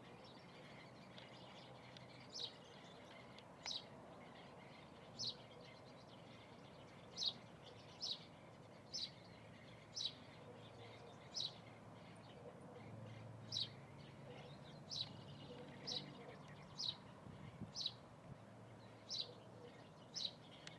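A bird chirping over and over: about sixteen short, high chirps, each sliding down in pitch, spaced roughly a second apart and sometimes closer, over a faint steady hiss.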